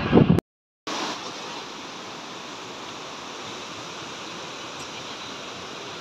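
Steady rush of a fast mountain river running over rocks, starting just under a second in. Before it comes a moment of car road noise, cut off by a brief dropout.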